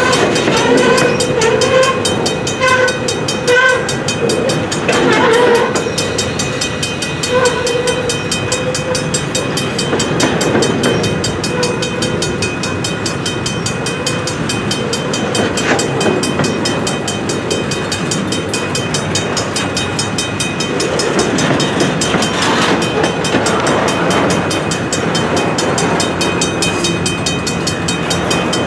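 Long double-stack intermodal container train rolling slowly past on the rails: a steady rumble with wheel clatter. A high pitched tone comes and goes over it during roughly the first twelve seconds.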